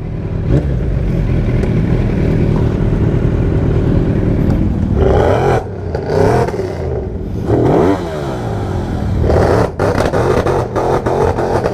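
Vehicle engines running with a steady low rumble, with engines revving up and down several times in the middle and again from about nine seconds in.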